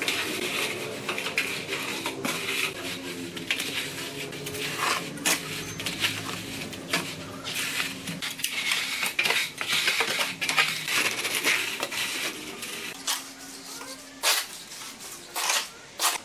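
Metal straightedge being drawn back and forth over a wet concrete countertop while screeding it level: a gritty scraping in repeated uneven strokes.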